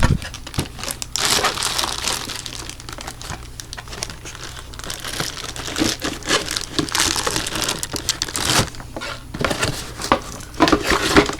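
Packaging crinkling and rustling in irregular bursts with small clicks as it is handled and pulled open.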